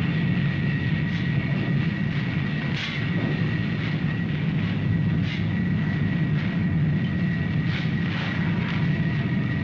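Steel mill machinery and furnaces, a steady heavy rumble with a thin high whine over it and a few short clanks.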